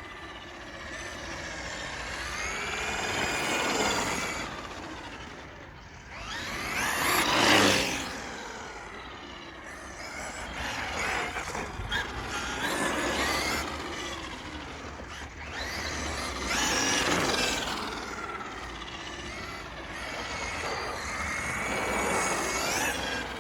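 Traxxas MAXX RC monster truck's electric drivetrain whining as it speeds up and passes several times. The pitch rises and falls with each pass, loudest about seven seconds in. A clicking, ticking noise comes with acceleration, an unwanted noise on a new truck.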